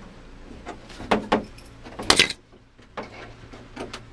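A handful of sharp metallic clicks and knocks, spaced irregularly, from hands and tools working on the fittings of an RV shower faucet. The loudest clack comes about two seconds in.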